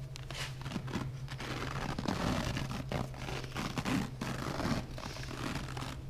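Self-adhesive vet wrap peeling off its roll in long pulls as it is wound around a padded horse-hoof bandage, a continuous rasping tear with a few louder stretches.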